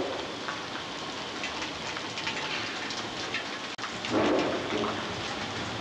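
Hurricane Wilma's heavy rain pouring down with gusting wind, a steady rushing hiss. A stronger gust swells up about two-thirds in, just after the sound drops out for an instant.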